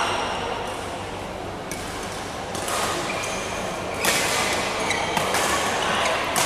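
Badminton doubles rally in an indoor hall: sharp racket strikes on the shuttlecock, the loudest about four seconds in, with short high squeaks of shoes on the court floor over a steady hall background.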